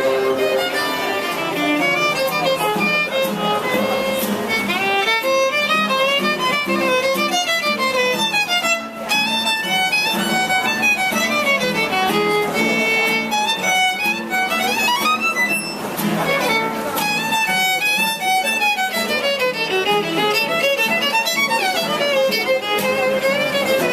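Fast violin music, a quick run of notes played without pause.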